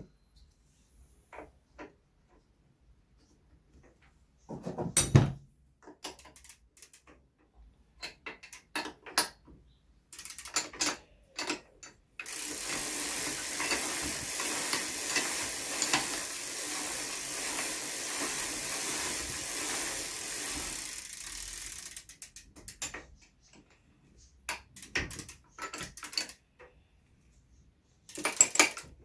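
A new pedal being fitted to a BMX bike crank. Scattered metal clicks and knocks of tool and parts, the loudest a sharp knock about five seconds in. Then about ten seconds of steady, rapid ratcheting clatter about a third of the way in, followed by more scattered clicks.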